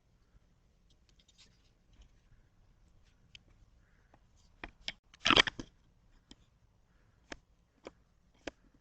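Handling noise on a doorbell camera's microphone: scattered sharp clicks and scratching, with a louder scraping rustle about five seconds in.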